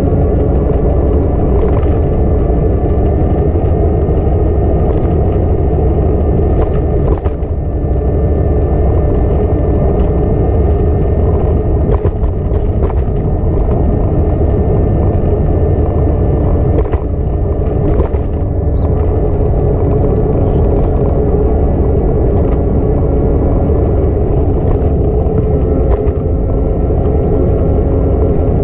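Steady low rumble and wind noise on a moving action camera, with a faint constant hum running under it.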